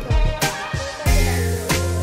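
Background music with a steady beat: a bass line and drums, with a cymbal crash about a second in.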